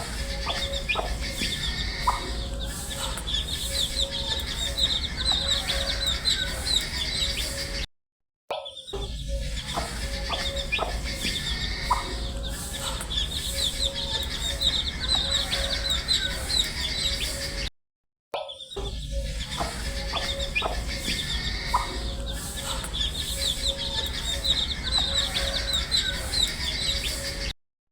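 A group of domestic chicken chicks peeping continuously in rapid, high, falling chirps over a faint steady low hum. The sound drops out briefly twice and restarts, because the same stretch of recording is repeated.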